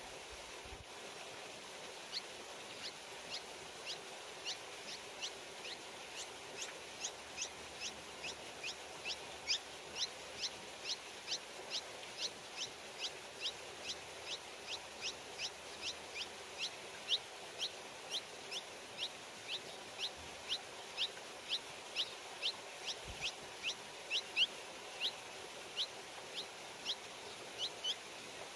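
A bird repeating one short, high, downward-slurred call note about one and a half times a second, over and over, beginning about two seconds in.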